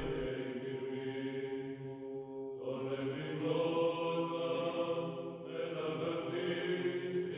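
Background music of slow chanting: long held vocal notes that shift to new pitches twice.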